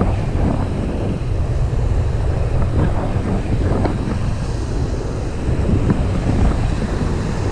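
Wind buffeting the microphone in a steady, rumbling rush, with surf breaking on the shore underneath.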